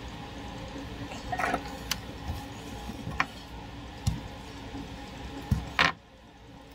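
Scattered clicks and taps of a soldering iron and small parts being handled on a workbench, over a steady low hum. A brief louder rustle comes near the end, after which the hum drops away.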